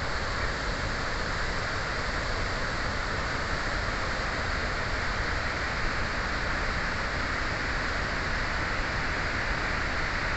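Floodwater released from a dam spillway, rushing and churning downstream as rapids: a loud, steady rush of water.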